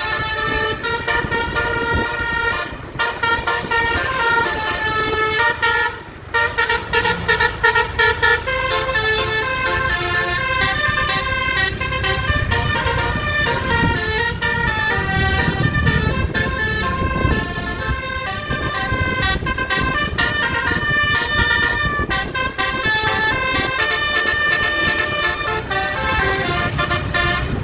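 Multi-trumpet Basuri 'telolet' bus horn with twelve trumpets, playing a melody as a run of steady tones stepping from note to note, with two short breaks about 3 and 6 seconds in. A low rumble runs underneath.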